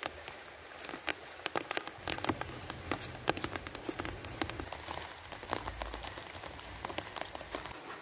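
Light rain pattering: a steady hiss with many irregular small drips and taps on surfaces.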